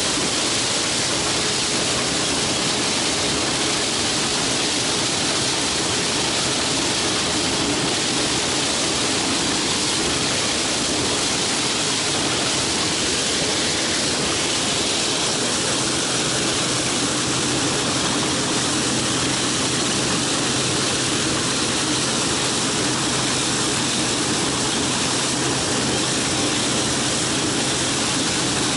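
Case 2166 combine harvester running under load while harvesting corn: the engine, threshing gear and corn header make a loud, steady, even noise with a low hum. The sound shifts slightly about halfway through.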